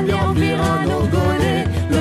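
Medieval-inspired folk music: fiddle and other instruments over a steady pulsing beat, with a woman singing.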